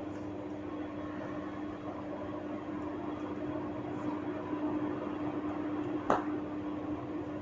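One sharp crack during a hair-and-neck cracking head massage, about six seconds in, over a steady machine hum with a constant low tone.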